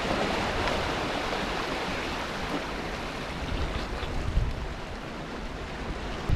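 Sea swell washing over shoreline rocks: a steady rush of surf.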